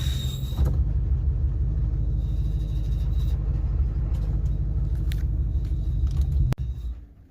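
2003–04 Mustang SVT Cobra's supercharged 4.6-litre V8 idling, with a high-pitched screech from a failing clutch throwout bearing that fades out within the first second. The engine keeps idling, then is shut off with a click near the end and dies away.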